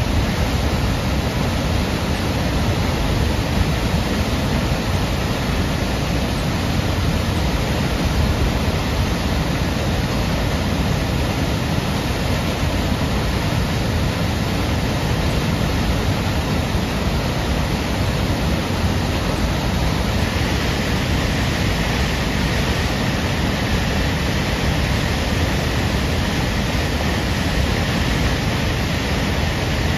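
Tahquamenon's Upper Falls, a wide waterfall, pouring over its ledge into the plunge pool in a loud, steady rush of water. The sound turns a little hissier about two-thirds of the way in.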